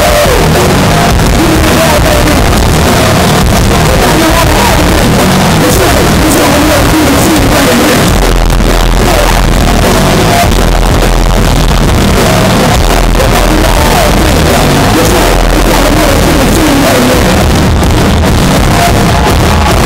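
Loud live concert music heard from within the crowd, pressing the microphone close to its limit. A wavering melody runs above it, and deep bass comes in stronger about eight seconds in.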